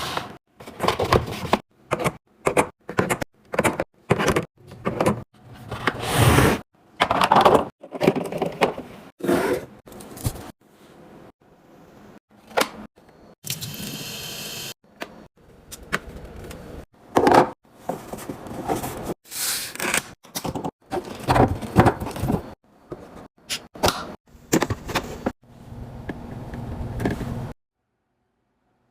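A refrigerator being restocked: many irregular knocks, clinks and rustles as containers, bottles and packaging are set down on shelves and in bins, with drawers and doors sliding and closing. The sound cuts off suddenly near the end.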